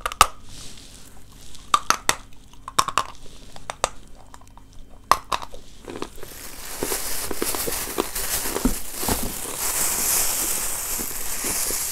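Crunchy bites into a lump of edible chalk, a few sharp cracks in the first five seconds. From about six seconds in, a plastic bag crinkles steadily as it is handled.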